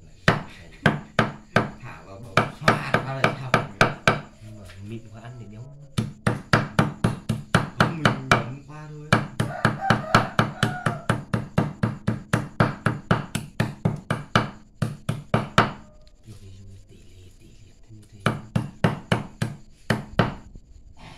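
Heavy cleaver chopping buffalo meat into fine pieces on a thick wooden chopping block, in quick repeated strokes of about four a second. The chopping stops twice for about two seconds, near the 4-second and 16-second marks.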